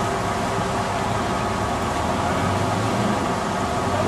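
Jeep Wrangler's engine running steadily at low speed as it crawls into a muddy water hole.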